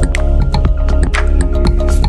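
Background music with a steady beat: sustained synth notes over a deep bass, with sharp percussion hits several times a second.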